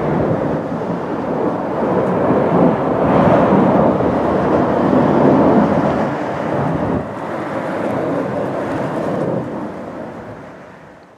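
Engine noise of four aircraft flying over in formation: a broad rumble that builds to its loudest in the middle and fades away over the last couple of seconds.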